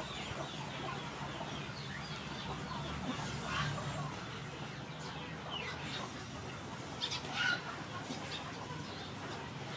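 Chickens clucking now and then, with short bird chirps over a steady outdoor background; the loudest calls come about a third of the way in and again past the middle.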